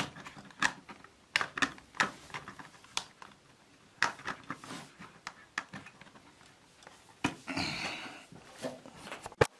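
Irregular plastic clicks and taps from the parts of a portable fan heater's housing being handled and fitted together, with a brief scraping rub about eight seconds in and a sharp click near the end.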